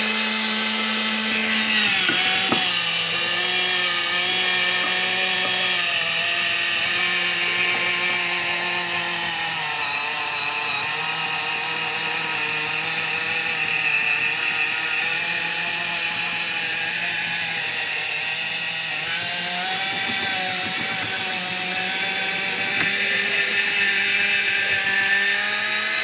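One Touch battery-powered automatic can opener running on a can. Its small electric motor whines steadily as it drives itself around the rim, cutting the lid, and the pitch shifts slightly every few seconds.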